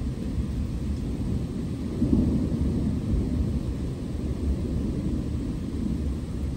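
Low rolling thunder, swelling about two seconds in, with rain hissing faintly underneath.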